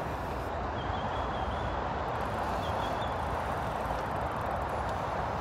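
Steady rushing noise of a bicycle ride: wind buffeting the microphone and tyres rolling on a paved path.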